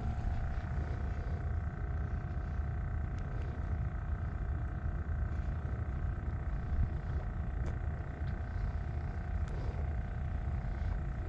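Steady low engine rumble carrying a faint constant hum, with a few light ticks.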